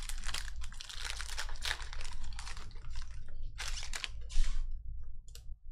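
Foil wrapper of a trading-card pack being torn open and crinkled, with cards handled, in quick irregular crackles that stop about four and a half seconds in, leaving only a few small clicks.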